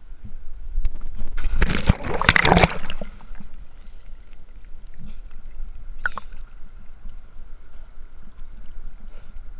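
A person plunging into a river: a loud splash and rush of water about a second and a half in, lasting over a second, then quieter sloshing and lapping of water around the swimmer.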